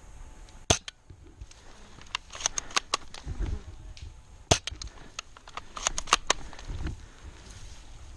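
Airsoft guns firing: a string of sharp snapping shots, single ones about a second in and halfway through, with quick runs of several shots in between and near the end.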